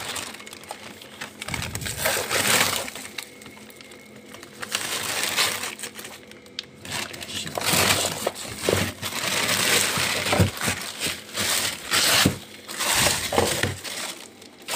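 Plastic bags crinkling and rustling in irregular bursts as bagged frozen fish and meat are moved about by hand.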